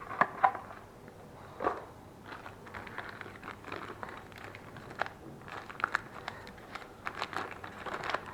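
Bearing packaging handled by hand: faint crinkling with scattered small clicks and light knocks.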